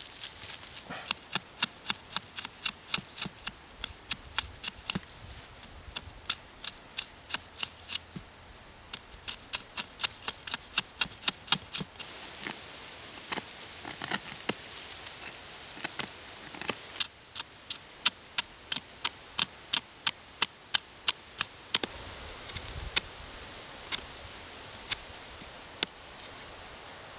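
Knife blade cutting with quick short strokes against a wooden log, a run of sharp ticks about three a second with a faint high ring, broken by brief pauses. The strokes thin out in the last few seconds and stop.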